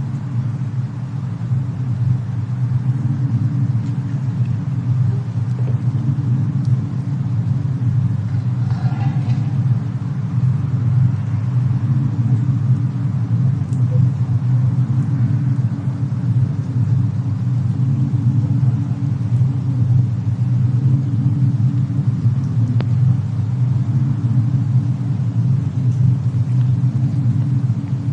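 Deep, steady rumble from a fireplace-and-snowstorm ambience mix, with a few faint clicks on top.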